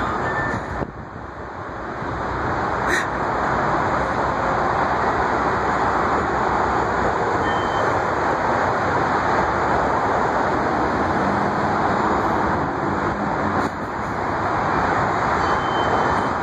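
Steady rushing noise of street traffic, with a couple of faint clicks.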